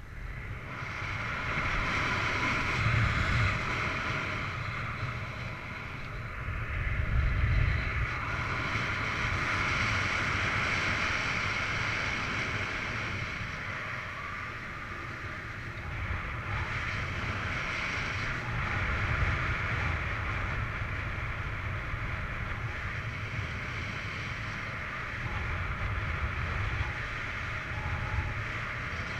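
Wind noise from in-flight paragliding airflow rushing over the camera microphone: a steady rushing hiss with low buffeting rumble, rising sharply about a second in and staying loud.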